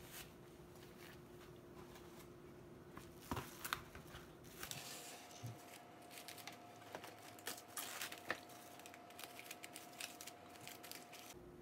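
Plastic cling wrap crinkling as it is pulled off the roll and pressed over a glass baking dish: faint, scattered crinkles and small clicks that start a few seconds in.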